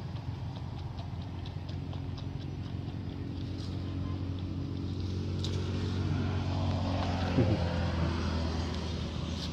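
A motor engine running steadily, growing somewhat louder in the second half, with a short falling glide in pitch about seven seconds in.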